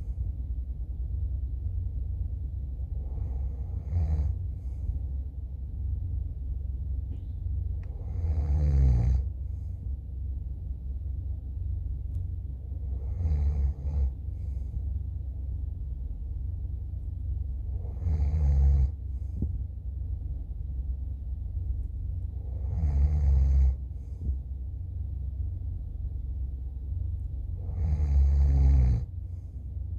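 A person snoring in slow, even breaths, with a loud snore about every five seconds, over a steady low rumble.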